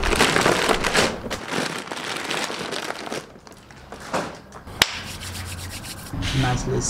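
Paper charcoal bag rustling and scraping as it is handled, loudest in the first second and a half, then quieter, with one sharp click about five seconds in.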